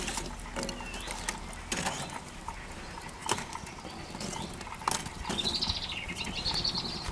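Lumps of barbecue charcoal knocking and clinking against each other as they are piled by hand around a lit firelighter, a few separate knocks spread out. A bird chirps and, from about five seconds in, sings a rippling trill.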